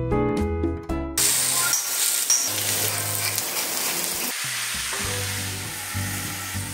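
Food sizzling on a steel teppanyaki griddle, a steady hiss that takes over about a second in as a jazz piano tune fades back, the music going on softly underneath.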